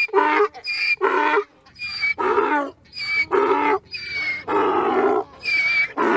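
Donkey braying: a long run of hee-haws, with high, thin in-breath notes alternating with lower, harsher out-breath notes about once a second. The calls stop just after the end.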